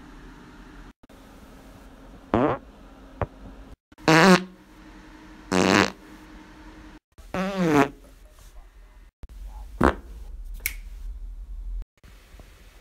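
A run of separate human farts, about six in a dozen seconds, each short and sharp, several with a buzzing, wavering pitch. A couple of sharp clicks come between them.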